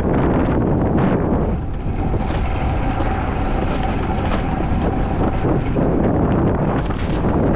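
Alpine coaster sled running along its track: a continuous loud rumble mixed with wind buffeting the action-camera microphone, and a faint steady whine for a few seconds in the middle.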